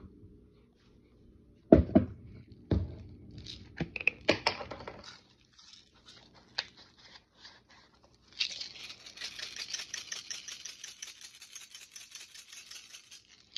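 Pepper grinder being twisted over a bowl of rice: about five seconds of fast, dry crackling clicks, starting a little past halfway. It follows a couple of knocks and clicks from handling the shakers and bowl.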